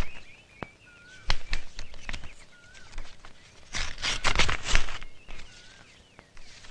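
Paper rustling as a letter is handled and unfolded, with a cluster of crisp rustles about four seconds in and scattered clicks before it. Birds chirp faintly at intervals in the background.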